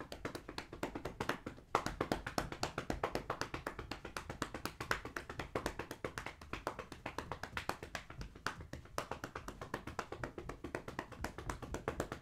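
A hand patting a long-haired tabby cat's rump in a quick, steady run of pats, several a second.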